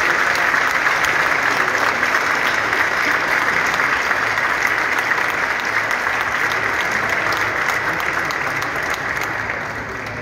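Large audience applauding after a speech, a dense, steady clapping that thins out and drops near the end.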